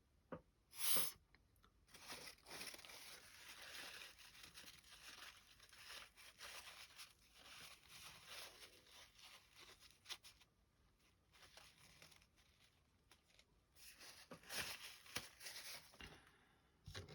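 Faint scraping and rustling of hands handling small plastic model parts, with a short sharp crackle about a second in and a second stretch of scraping near the end.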